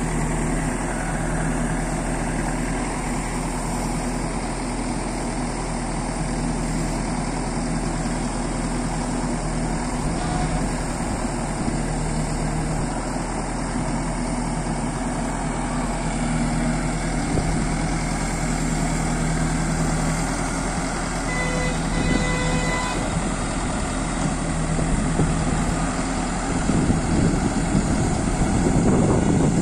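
Diesel engine of an Escorts Digmax 2 backhoe loader running steadily while the backhoe arm digs. It grows louder and rougher over the last few seconds.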